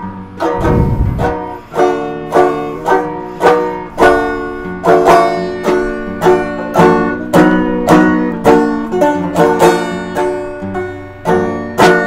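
Instrumental break in a song: a plucked string instrument picking a quick, steady melody, about two to three notes a second, with a heavy low swell about a second in.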